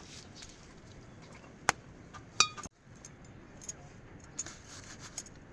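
Household utensils clinking: small clicks, a sharp knock, then under a second later a ringing clink, over a steady faint hiss.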